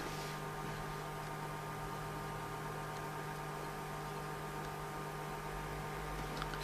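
Steady electrical mains hum with a layer of hiss, unchanging throughout, with a faint tick near the end.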